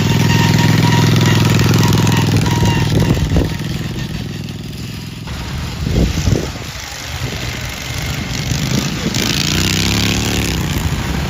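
Racing lawnmower engines going past at speed: one loud pass over the first few seconds, then quieter engine noise, and near the end another engine whose pitch rises and falls as it goes by.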